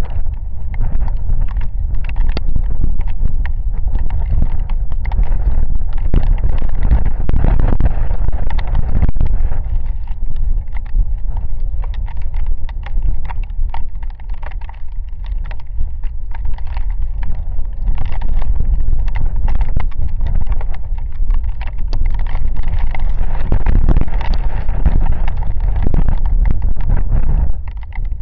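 Heavy rain in gusty wind: wind buffeting the microphone and a dense, fast patter of raindrops striking close to it. It eases briefly about halfway through and just before the end.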